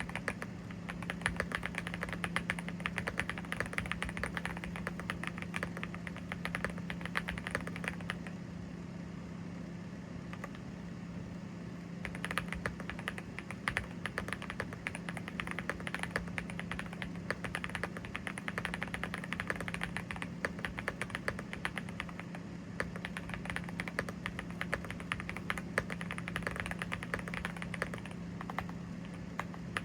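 Fast, continuous typing on a Yunzii AL68 mechanical keyboard with Gateron Zero linear switches, keystrokes clacking in quick runs; the typing thins out to a few keystrokes about a third of the way in, then picks up again. A steady low hum runs underneath.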